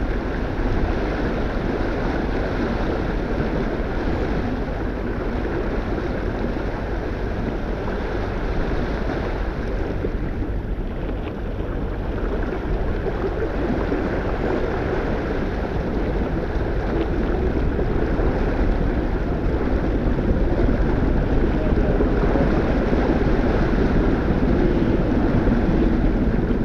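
Wind buffeting the microphone over the rush of water along a sailboat's hull, a steady noisy wash that grows a little louder in the last few seconds.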